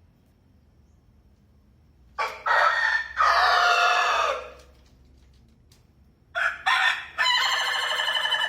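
Rooster crowing twice: a crow about two seconds in lasting about two seconds, then a second crow starting near the end.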